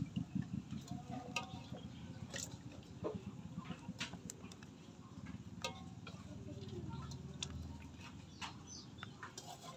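Wet clicks and small splashes of live rice-field eels being handled in shallow water in plastic and metal basins, over a low, fast pulsing sound in the background that swells near the end.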